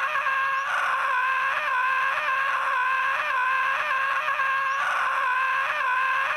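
A cartoon sun character's scream: one unbroken, high-pitched 'ahh' with a slight wobble in pitch two or three times a second, looped so that it never stops for breath.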